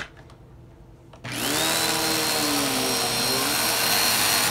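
A click, then about a second in an upright vacuum cleaner is switched on. Its motor spins up with a rising whine that settles into a loud, steady high-pitched run.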